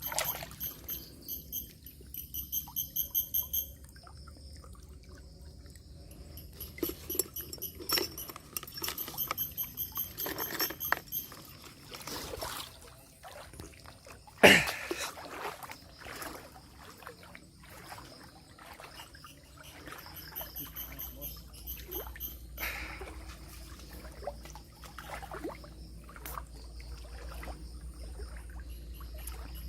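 River water splashing and trickling, with scattered small knocks and one sharp knock about halfway through. A high, rapidly pulsed chirping call comes and goes in the background.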